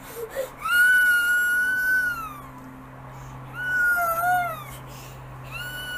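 A young child squealing in high-pitched, held calls: one long squeal of nearly two seconds, a shorter one a couple of seconds later, and another starting near the end.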